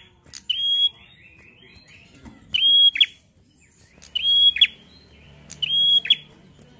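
Caged prenjak songbird calling loudly and repeatedly, a bird in full song and fighting form. There are four calls, about one every one and a half seconds, each a high whistle held briefly that snaps into a quick downward sweep.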